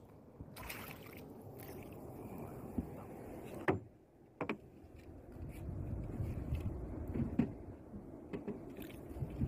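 Water noise around a small fishing boat, with a few sharp knocks and clicks as a fish is reeled in. The low noise grows louder about halfway through.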